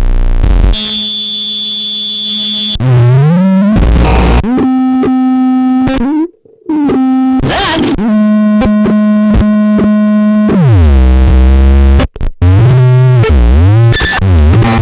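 Harsh electronic noise music from a DIY noise cassette: loud, buzzy electronic tones that sweep up and down in pitch and hold as drones. The sound chops off abruptly twice, about six and a half and about twelve seconds in.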